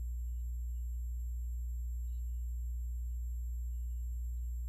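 A steady low hum with nothing else in it: background hum of the narrator's recording setup between spoken lines.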